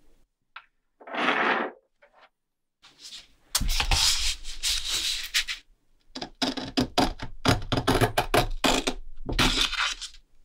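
Rubbing strokes of a vintage Certina watch part being polished by hand: one short stroke, a longer stretch of steady rubbing, then a run of short quick strokes.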